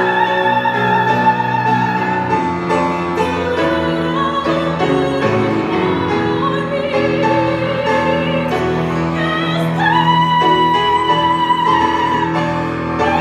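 A woman singing a sacred song solo in a classical, operatic style over instrumental accompaniment, holding a long high note at the start and another about ten seconds in.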